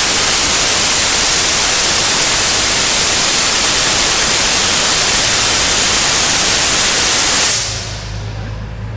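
Compressed air blasting out of the drain valve of an International truck's primary air-brake tank as the tank is drained: a loud, steady hiss that fades out about seven and a half seconds in.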